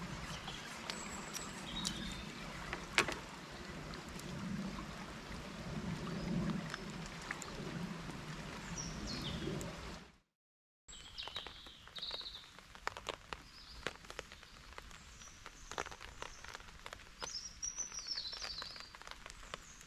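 Lake-shore ambience, a low steady rush, with a few sharp clicks as a carabiner and cord are handled. About halfway through, the sound cuts out for half a second. Quieter woodland follows, with bird calls and scattered light ticks.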